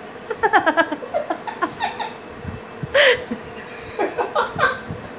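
A man and a baby laughing together in short, repeated high-pitched bursts, with a breathy laugh about three seconds in.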